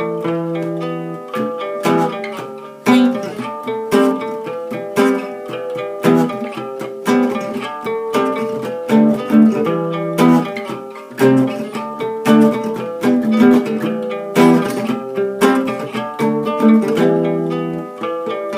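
Old Soviet acoustic guitar with steel strings played with a pick: an improvised run of picked notes and strums, with a strong accent about once a second.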